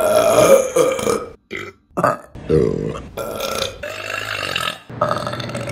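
Women burping: a run of about five or six loud burps, one after another, with short breaks between them.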